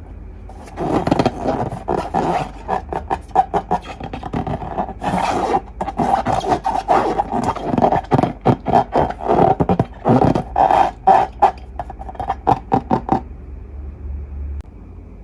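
Slime and rubber balloons being squeezed and worked by hand: a dense, irregular run of wet squelching pops and rubbery squeaks that starts about a second in and stops about two seconds before the end.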